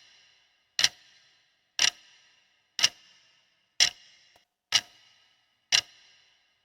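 Quiz countdown timer: a clock ticking about once a second, each tick sharp with a short ringing tail.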